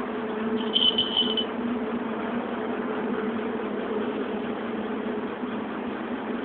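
A steady low mechanical hum, with a brief high thin tone about a second in.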